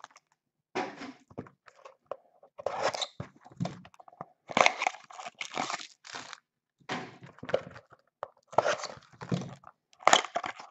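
Plastic wrappers of trading card packs crinkling and tearing as they are handled and opened, in irregular crunchy bursts with short pauses between them.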